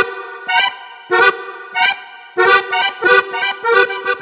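Background music: a tune in short, clipped chords, spaced unevenly at first and coming in a quicker, steady run from a little past halfway.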